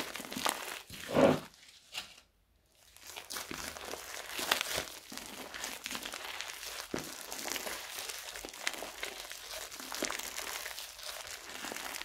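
Fluffy slime made of clear glue and hair foam being kneaded and squeezed by hand, giving a dense, continuous crackling. The sound cuts out briefly about two seconds in, then the crackling resumes.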